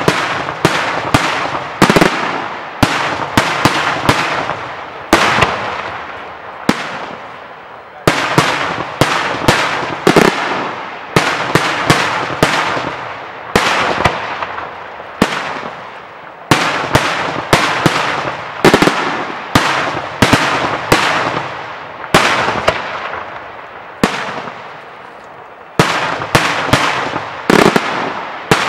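Daytime aerial firework shells bursting in a rapid series of sharp bangs, each trailing off in a rumbling echo. The bangs come in volleys, several a second at times, with brief lulls about a quarter, a half and most of the way through.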